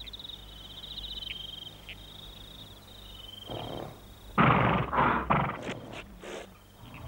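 Crickets chirping in quick pulses. About three and a half seconds in, the sick horse starts taking a run of loud, heavy breaths and snorts.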